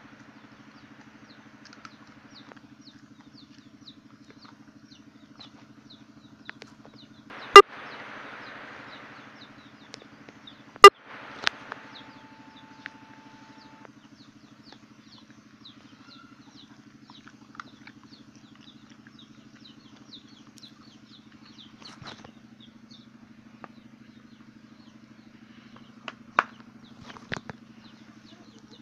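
A motor running steadily with a low hum, broken by two sharp, loud knocks about seven and eleven seconds in, and a few lighter knocks near the end.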